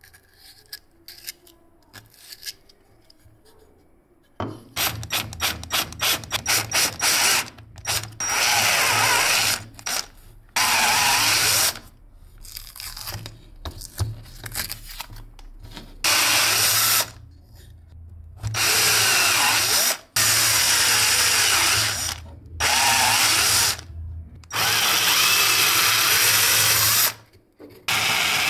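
Power drill boring holes into a small wooden block, in about eight loud bursts of one to three seconds each with short pauses between. Before the drilling starts there are a few seconds of light handling clicks and then a quick run of clicks.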